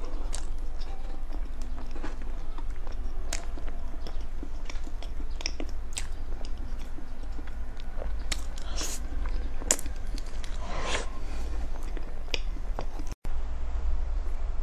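Close-miked eating of soft chocolate mousse cake: a metal spoon scooping into the cake, then wet chewing and lip smacks, with scattered short clicks over a steady low hum. The sound drops out for a moment about 13 seconds in.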